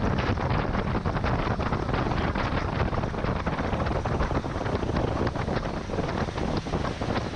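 Wind buffeting the camera microphone as an Alumacraft fishing boat runs fast across the lake: a steady heavy rush with rapid, dense thuds, the boat's running noise under it.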